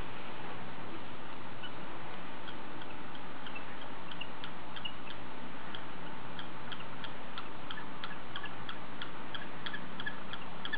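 Steady background hiss with a regular series of short, high chirps or ticks, about two a second, starting about two seconds in and growing more even.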